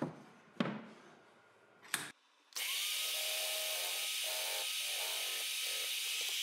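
Three sharp knocks in the first two seconds, then a drill press starts and runs steadily with a countersink bit cutting into plywood.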